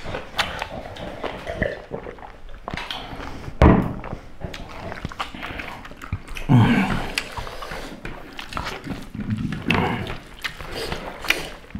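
Eating sounds from people eating rice and curry by hand: frequent wet mouth clicks and chewing, with a few short breathy grunts. One loud thump about three and a half seconds in.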